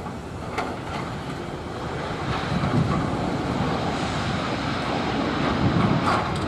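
Airbus A320 jet engines rushing and rumbling as the airliner slows on its landing roll with spoilers raised. The noise swells about two seconds in and peaks again near the end.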